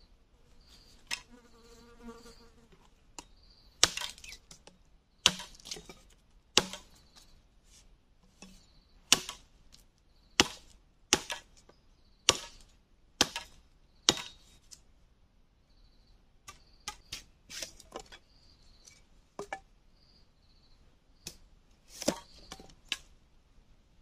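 Machete chopping into a length of bamboo: about nine sharp strikes, roughly a second apart, through the first half, then lighter, quicker cuts near the end. A faint insect chirp repeats in the background.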